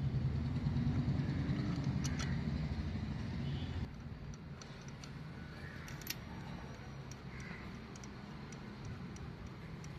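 A low rumble for about four seconds that cuts off abruptly, then faint, scattered metal clicks as connecting rod caps and tools are handled on an engine block.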